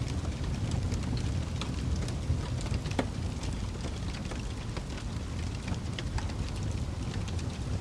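Wood fire burning with a steady low rumble and frequent small pops and snaps, a few sharper cracks among them.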